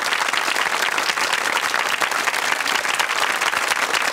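Studio audience applauding: dense, steady clapping from a large crowd.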